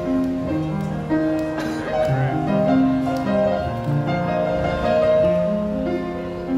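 Calm instrumental background music: a slow melody of held notes, one after another, at a steady level.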